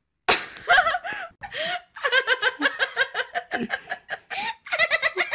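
Laughter: a fast run of short, repeated voiced bursts, steady from about two seconds in.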